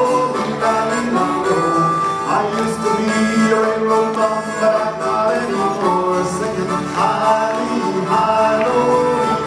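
Folk band playing an instrumental break, the chromatic harmonica carrying the melody with held and bending notes over strummed acoustic and 12-string guitars and bass guitar.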